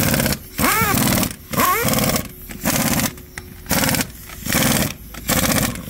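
A tyre-shop machine running in short, loud, regular bursts, roughly four every three seconds. Each burst starts with a tone that rises and falls, and a faint steady hum runs underneath.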